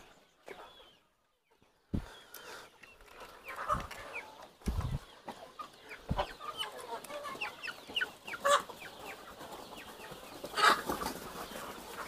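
Free-ranging country chickens clucking, many short calls overlapping, starting about two seconds in, with a few low thumps among them.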